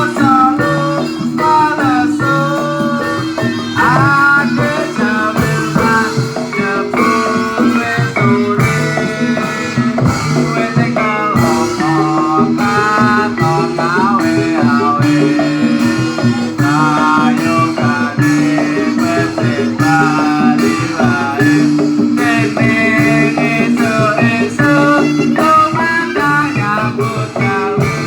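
Loud music accompanying a jatilan hobby-horse dance, with a steady beat, repeated bass notes and a wavering melody line.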